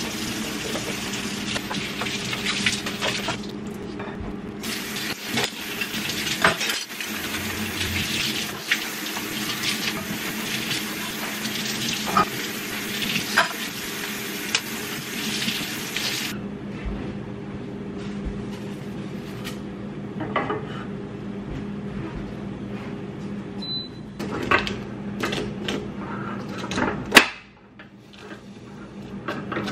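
Kitchen tap running into a stainless steel sink while dishes are washed, with glass and utensils clinking. About halfway through the water stops, giving way to a saucepan sizzling on a gas burner and a wooden spoon knocking against the pan. A steady low hum runs underneath.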